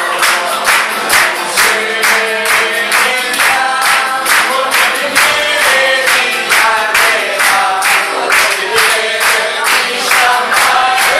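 A group singing along to an acoustic guitar, with a crowd clapping in time: a steady beat of hand claps, a little more than two a second.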